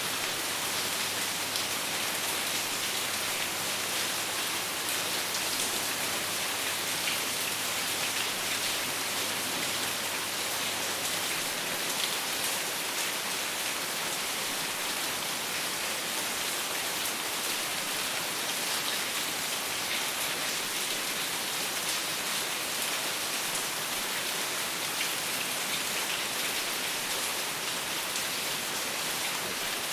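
Steady rain falling, with many fine drops pattering on a surface.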